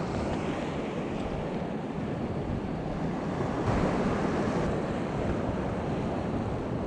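Wind buffeting an action camera's microphone over small waves washing onto a sandy shore: a steady rushing noise, a little louder about three and a half seconds in.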